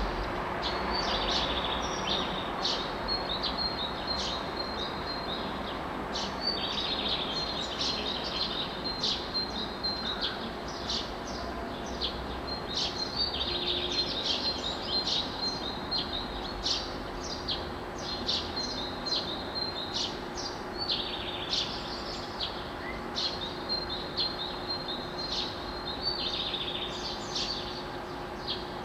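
Dawn birdsong: many songbirds chirping and trilling together, with short calls and rapid note series following one another without a break. Underneath runs a steady low hum and rumble.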